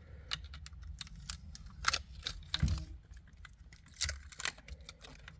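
Small plastic steering-column parts (clock spring and steering angle sensor) being handled by hand: scattered light clicks and scrapes, over a steady low hum.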